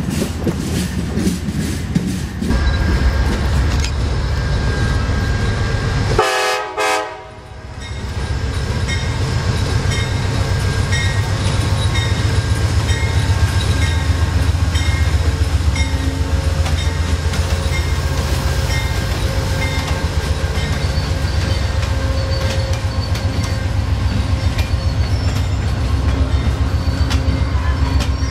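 Amtrak passenger train led by a GE Genesis diesel locomotive passing close by. The diesel engine rumbles steadily under load and the wheels click over the rail joints. A brief horn chord sounds about six to seven seconds in.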